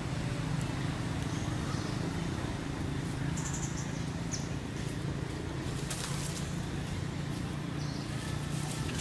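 Outdoor ambience: a steady low hum with a few short, high chirps and a couple of sharp clicks about six seconds in.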